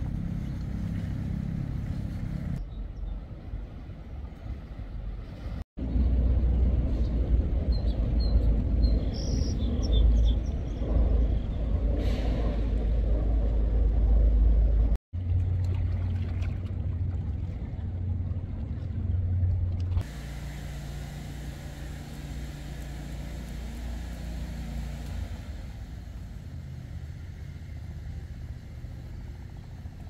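Low, steady engine rumble of motor traffic, with a louder, noisier stretch in the middle. The sound drops out sharply twice and changes abruptly, as between separate recordings.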